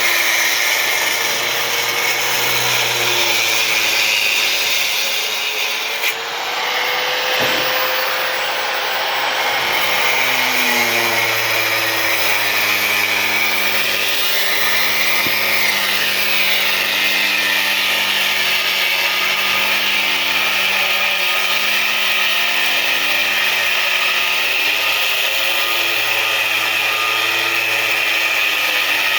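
Machinery running continuously with a loud, steady noise and a wavering hum, with a brief change about six seconds in.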